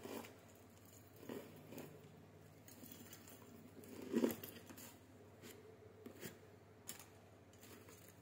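Flowers and their stems being handled: irregular rustles and crinkles with light clicks, the biggest about four seconds in.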